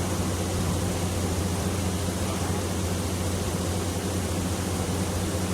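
Steady low hum of an idling vehicle engine under an even hiss, unchanging throughout.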